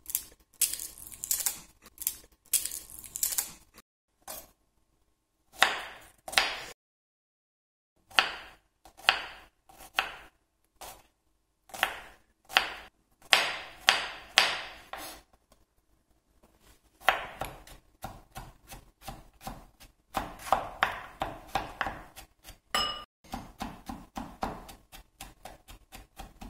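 Kitchen knife chopping garlic on a bamboo cutting board: short runs of sharp knocks, closer together and quicker in the second half as the garlic is minced finer.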